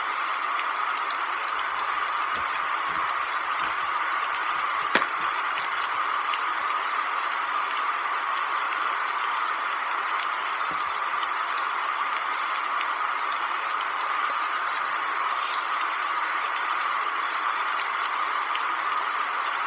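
Steady, even hiss of background noise with a single sharp click about five seconds in.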